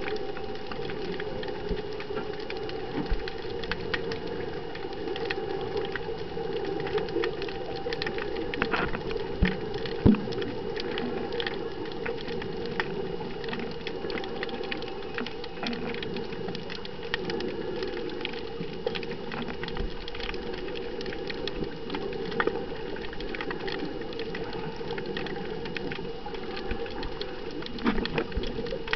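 Underwater sound picked up by a camera held below the surface: a steady, muffled noise with constant faint crackling and clicking, and a few sharper knocks, the loudest about ten seconds in.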